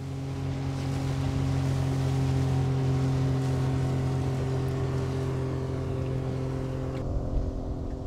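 Outboard motor on a small aluminium boat running steadily at speed, a constant low hum with water rushing past the hull; the rushing hiss drops away about seven seconds in while the hum carries on.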